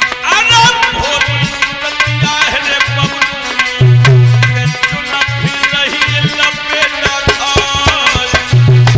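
Indian devotional instrumental music: a tabla-style hand drum plays a quick rhythm of sharp strokes and deep bass strokes that bend in pitch, under a melodic lead line with sliding notes.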